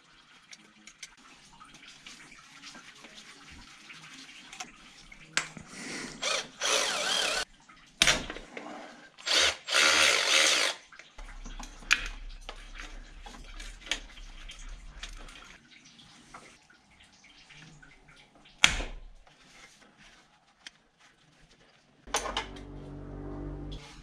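Tools undoing bolts on the EGR cooler of a BMW M47 diesel engine. There are two loud bursts of tool noise lasting one to two seconds each, about six and ten seconds in, sharp metal clinks, and a short whir near the end.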